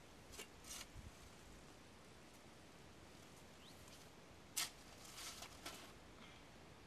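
Near silence with a few faint short clicks and scrapes; the sharpest comes about four and a half seconds in, followed by a small cluster of softer ones.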